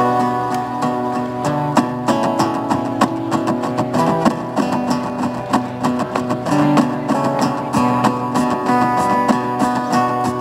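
Acoustic guitar played in a steady rhythm, notes picked and strummed in an instrumental passage.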